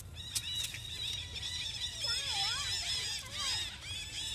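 Long-tailed macaques squealing and screaming in a scuffle: rapid, high-pitched, arching calls repeated many times, with a lower wavering squeal a couple of seconds in.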